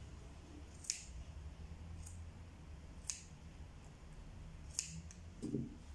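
Scissors snipping through strands of yarn doll hair to cut a fringe: a handful of separate crisp snips, the clearest about one, three and five seconds in, with fainter ones between.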